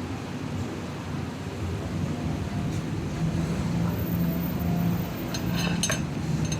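Steady low background rumble, with a short run of clicks about five and a half seconds in.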